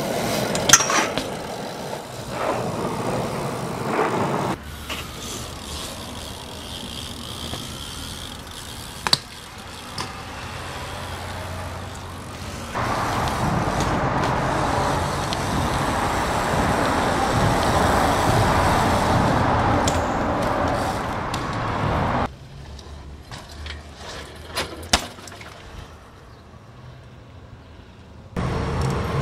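Raw sound of BMX street riding: bike tyres rolling on concrete and pavement, with a few sharp knocks and clanks as the bike hits rails, walls and the ground. Through the middle stretch a loud, steady rush of traffic and wind noise covers it.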